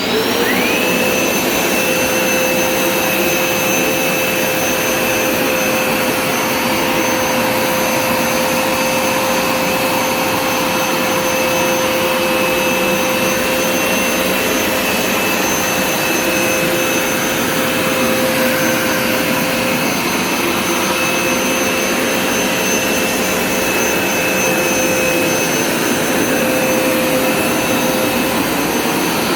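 Hoover Smartwash Pet Complete carpet cleaner's motor spinning up as it is switched on, then running steadily with a high whine while it is pushed over a spot of carpet.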